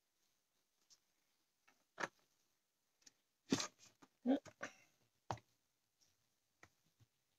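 Scattered clicks and knocks of a phone being handled and repositioned: one about two seconds in, a cluster of the loudest in the middle, and a last knock a little after five seconds.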